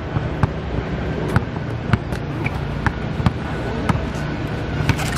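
Basketball dribbled on a hard court, a sharp bounce about twice a second, over steady background noise.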